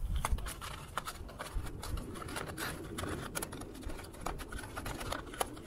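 Chemical-resistant wheel brush scrubbing the wet, foam-covered face of an alloy wheel: quiet, irregular scratchy strokes over a faint low rumble.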